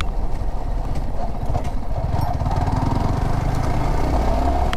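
Yamaha R15 V4's 155 cc single-cylinder engine running steadily while the motorcycle is ridden, with road and wind noise.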